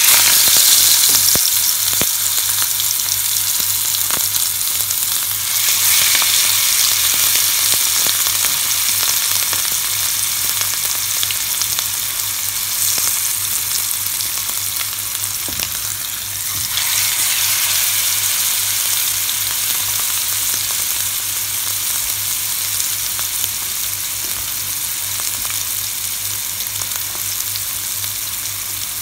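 Masala-coated fish steaks sizzling in hot coconut oil in a flat pan as they are shallow-fried: a loud, steady hiss and spatter, strongest as the first piece goes in, and flaring up again about 6 and 17 seconds in.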